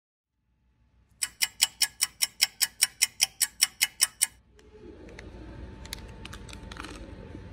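Clock ticking fast and evenly, about five sharp ticks a second for some three seconds, then cutting off. A steady hiss with a few faint clicks follows.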